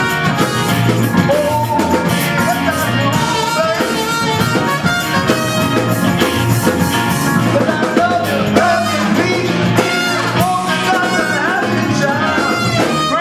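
Live rock band playing, with singing and guitar over a full band.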